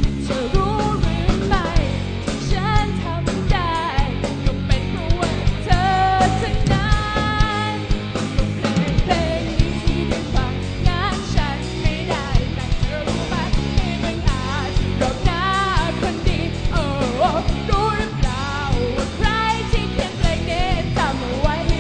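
Live rock band playing: a singer carries the melody over electric guitars, bass guitar and drums keeping a steady beat.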